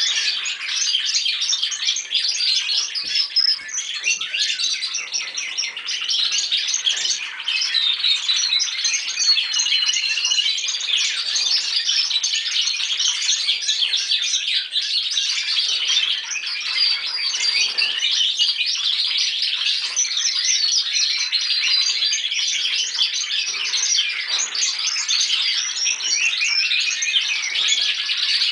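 Several young Spanish Timbrado canaries singing at once, a continuous dense chorus of overlapping trills and warbles. These are juveniles practising their still-developing song.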